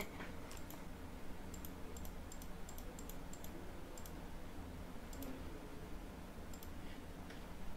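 Computer mouse clicking at irregular intervals, faint, over a low steady background hum.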